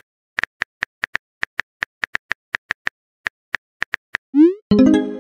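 Texting-app keyboard typing sound effect: rapid, slightly irregular clicks, about five a second. Near the end a short rising blip and a brief tonal sound with several pitches follow, the app's alert as the typed message is sent.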